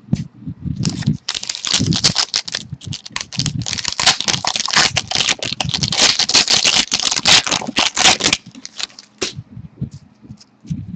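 Hands opening a pack of hockey trading cards: a long run of rapid crackling and crinkling from about a second in, thinning out to scattered clicks near the end.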